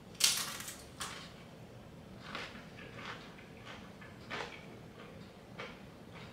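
A crisp tortilla chip bitten with one loud crunch just after the start, then chewed with several softer, irregular crunches.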